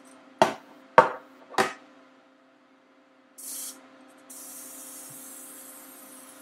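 Three knocks, then a short hiss of nonstick cooking spray from an aerosol can and, about four seconds in, a longer steady spray.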